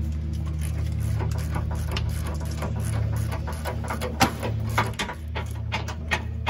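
Hand ratchet with an 18 mm socket clicking as it turns the nut on a new sway bar end link, in irregular runs of clicks that come thicker in the second half, over a steady low hum.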